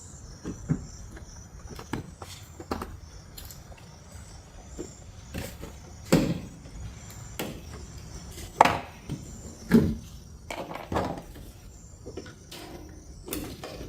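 Plastic push rivets being pried out with a trim removal tool on a Ram 1500's tail light: a string of irregular clicks, taps and knocks, a few louder ones in the middle.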